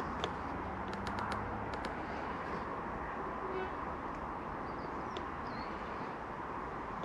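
Steady outdoor background rush with a few bird chirps, and a handful of faint clicks in the first two seconds.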